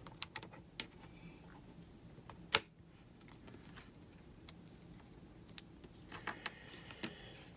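Small clicks and clinks of test leads and clips being handled at a bench capacitor tester, with one sharp click about two and a half seconds in and a few more near the end.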